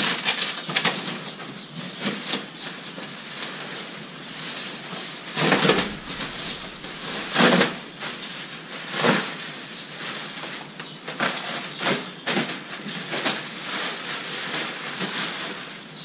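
Plastic wrap and bubble wrap rustling and crinkling as it is handled and pulled off a kayak hull, with louder crackles about six, seven and a half and nine seconds in.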